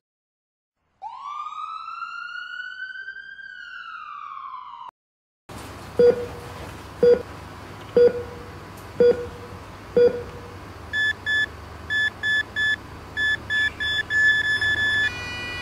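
Film sound effects: an emergency-vehicle siren gives one long wail that rises and then falls. Then a heart-monitor-style effect beeps with a thump once a second five times, beeps faster in short clusters, and settles into one continuous flatline tone, the sign of the patient's heart stopping.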